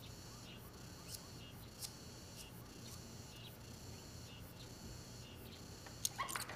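Faint crickets chirping in short high chirps, about two a second. Near the end, a few light clicks and knocks.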